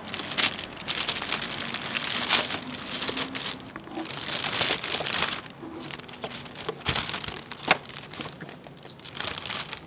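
Thin clear plastic carry bag crinkling and rustling in irregular bursts as plastic takeout containers are lowered into it, with a few sharp clicks.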